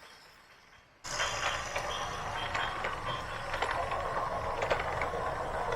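Heavy machinery working: a steady low engine rumble with a dense clatter of clicks and rattles, starting suddenly about a second in.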